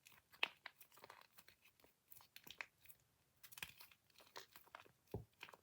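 Faint, sparse crinkling and small clicks of plastic packaging being handled, with a soft knock near the end.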